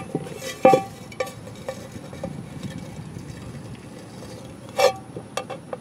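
Metal target plates being handled, knocking a few times, each knock with a short metallic ring. The loudest knock comes about a second in and another near five seconds.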